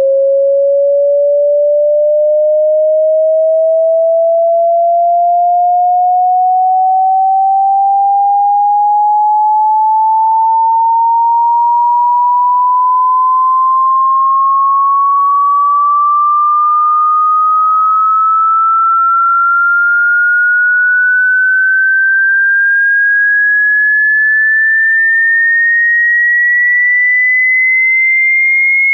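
Hearing-test sine tone: a single pure electronic tone sweeping slowly and evenly upward in pitch, from a mid tone to a high whistle, at a steady level.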